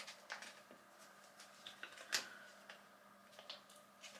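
Faint, scattered clicks and light taps of small objects being handled, with one sharper click about two seconds in, over a faint steady low hum.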